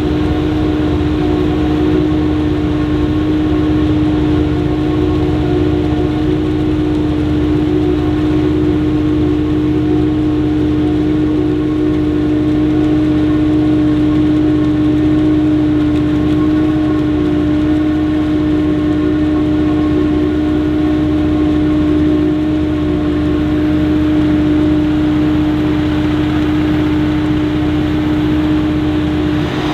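Krone BiG X 780 self-propelled forage harvester running steadily while chopping maize: a loud, even machine drone with one strong held whine over a low engine rumble.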